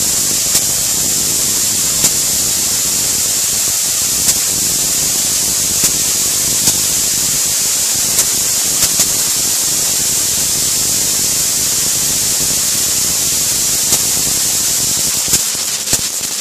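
Corona discharge on a wet insulator under high-voltage test: a loud, steady hiss with sharp cracks every second or two.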